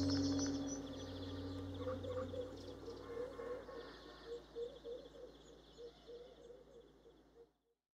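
The last sustained notes of a soft music track die away over the first couple of seconds, leaving birds chirping in short repeated calls that grow fainter and cut off abruptly into silence about seven and a half seconds in.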